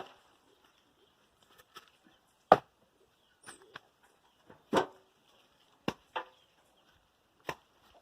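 Pieces of dry firewood knocking against one another as they are dropped onto a pile: about five sharp wooden knocks at irregular intervals, over a faint steady high hiss.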